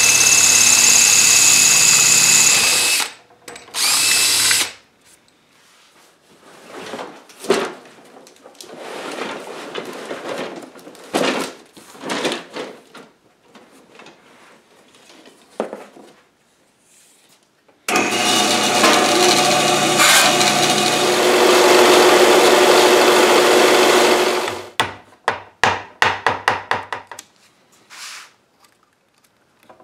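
Power drill with a quarter-inch bit boring out a snapped, rusted screw through a metal eye in a wooden chair frame, running steadily for about three seconds, then a short second burst. After a stretch of scattered handling clatter, a power tool runs steadily again for about six seconds, followed by a quick run of light knocks.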